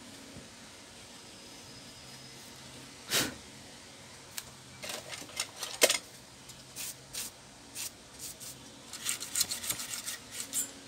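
Small clicks, taps and a short scrape from a desktop RAM module being handled after its contacts were rubbed clean with an eraser. There is one sharp click about six seconds in and a quick run of light clicks near the end, over a faint steady hum.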